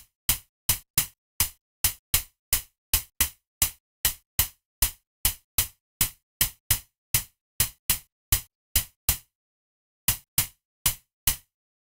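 Synthesized snare drum, white and red noise filtered and shaped by a short envelope in a VCV Rack patch, struck over and over at about three hits a second, each a short sharp burst of noise. The hits stop about nine seconds in and four more follow near the end, while a filter cutoff is being turned to change the tone.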